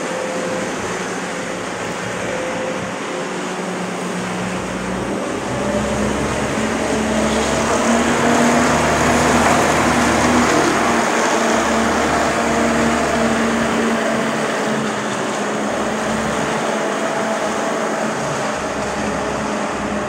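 Diesel engine of a self-loading concrete mixer running steadily, getting louder and slightly higher in pitch about five seconds in, then holding.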